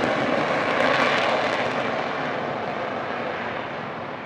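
The twin Rolls-Royce Avon turbojets of a BAC Lightning F6 running on full reheat as it accelerates down the runway away from the listener, a dense jet roar that fades steadily and loses its top end as it draws away.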